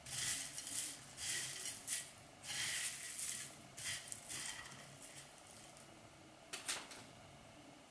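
Fingers pressing a sauce-coated tofu cube into crushed corn flakes in a glass dish, the dry crumbs rustling and crackling in a series of short bursts over the first half. Two quick clicks near the end.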